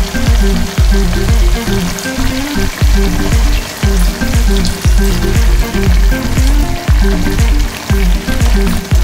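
Pork belly sizzling in a hot pot as vinegar is poured over it. Background music with a steady bass beat plays over it and is the louder sound.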